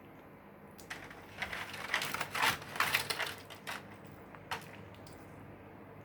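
Crisp Butter Ring butter cookies being bitten and chewed, a cluster of irregular crunches starting about a second in and ending with a last crack near four and a half seconds.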